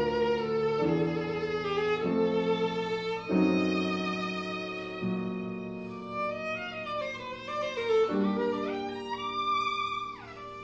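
Violin and grand piano playing together: the violin carries a melody with vibrato over sustained piano chords that change every second or two. Near the end the violin climbs quickly and then slides sharply down.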